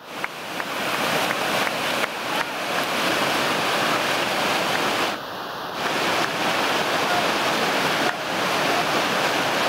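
Whitewater rapid rushing steadily, a dense, even water noise that dips briefly about halfway through.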